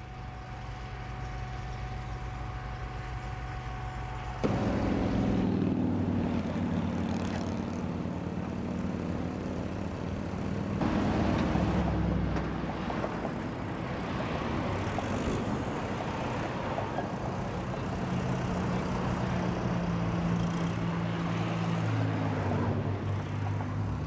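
Diesel engines of road-paving machines, a Cat 420E IT backhoe loader and an asphalt paver, running steadily. The engine note gets louder about four and a half seconds in and shifts in pitch later as the backhoe works.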